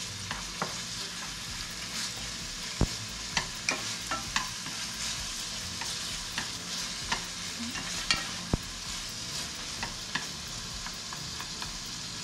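Chicken pieces sizzling in hot oil in a frying pan as they are stir-fried: a steady hiss with irregular sharp clicks of the utensil against the pan, the loudest a little under three seconds in and twice around eight seconds in.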